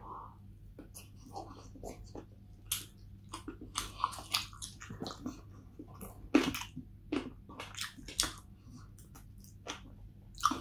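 Close-up chewing and biting of chicken wings: many short, irregular mouth clicks and crunches as meat is bitten off the bone and chewed.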